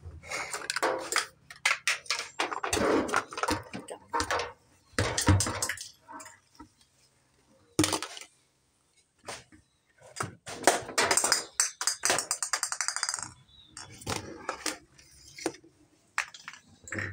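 Plastic toys clattering and knocking together as they are handled and rummaged through, in irregular sharp knocks.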